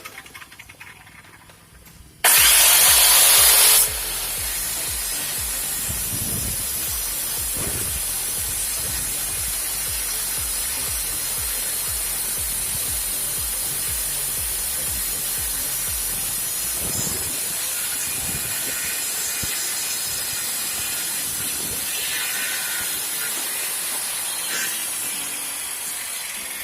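Hyuga UC5800 650 W circular saw making a test cut. It starts about two seconds in with a sudden loud burst lasting about a second and a half, then runs steadily through the cut and fades near the end.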